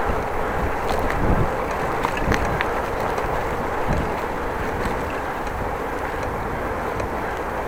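Bicycle riding noise: steady tyre rumble and wind on the microphone, with a few scattered sharp ticks and knocks from the bike in the first few seconds.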